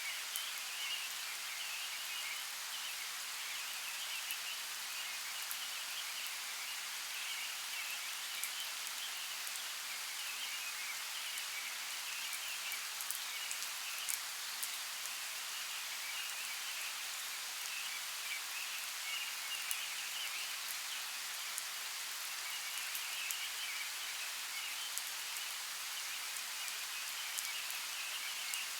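Steady rain hissing with scattered drop ticks, under a continuous high chirping chorus.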